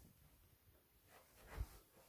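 Near silence: room tone, with one faint soft thump about a second and a half in.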